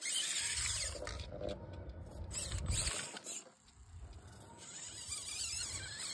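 Small electric RC rock crawler climbing a rock face: its motor and steering servo whine, rising and falling in pitch in short spurts with the throttle, over a low rumble of wind on the microphone.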